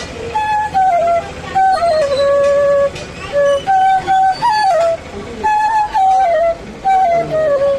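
Bamboo flute (bansi) playing a melody in short phrases of held notes that slide and bend between pitches, with brief breaths between phrases.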